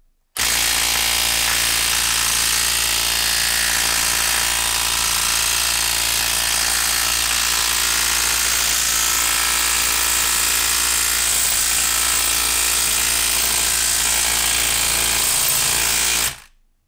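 Makita 18V cordless impact wrench hammering without a break for about sixteen seconds on a long bolt sunk in a log, then stopping suddenly. The unbroken hammering is the tool working against a bolt held fast by heavy friction, which the user puts down to moisture in the wood.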